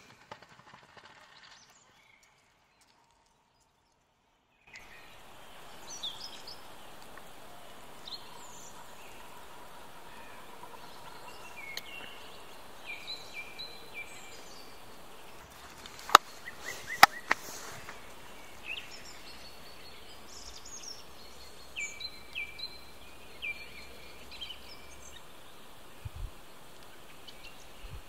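Many wild birds singing and calling in a forest: a steady stream of short chirps and whistles over a soft background hiss, after a few seconds of silence at the start. A few sharp clicks come about halfway through.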